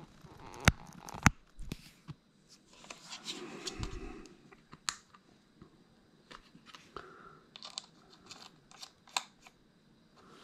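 Plastic clicks and handling noise from a DJI Mavic Air 2 remote controller as its control sticks are screwed in. Two sharp clicks about a second in, a short rustle, then scattered light ticks.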